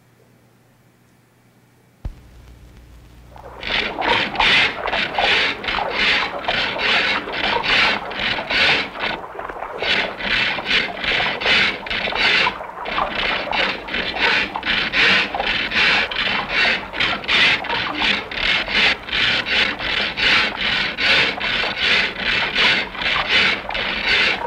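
A hand saw cutting through wood in quick, steady back-and-forth strokes, starting a few seconds in after a brief low hum.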